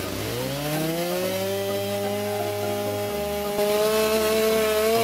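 Chainsaw revving up over the first second, then running at full throttle as it cuts into wood, growing louder about three and a half seconds in.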